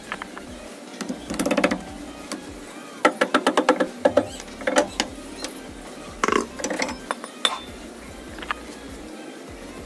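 Metal clatter and clinks as a car's rear wheel and brake drum are taken off: a quick run of knocks about three seconds in, then scattered clinks and knocks as the drum comes free of the drum brake.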